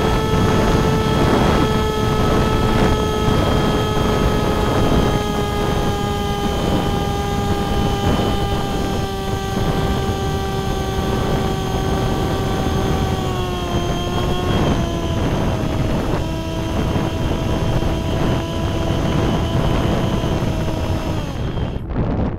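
Electric motor and propeller of a small fixed-wing RC plane whining steadily, heard through its onboard camera's microphone over rumbling wind noise. The pitch drops a little just past halfway and the motor stops near the end, leaving wind.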